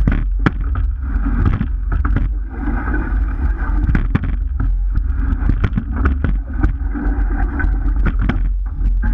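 Water rushing and splashing along the hull of a rowing boat under way, with wind buffeting the microphone. Scattered knocks and clicks of the oars and rigging.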